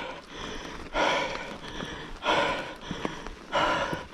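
A cyclist breathing hard after a steep uphill climb: three heavy, noisy breaths about a second and a half apart.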